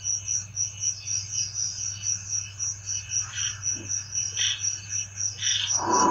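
Night insects chirping, led by a high-pitched call pulsing steadily about four times a second. A few fainter calls come in between, and a steady low hum runs underneath.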